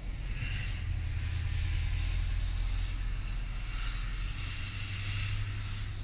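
A car driving along a snow-covered street, its engine running as it passes, over a steady low rumble of blizzard wind on the microphone.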